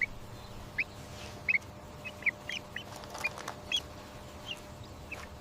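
Duckling peeping: a dozen or so short, high chirps at irregular intervals, fairly soft.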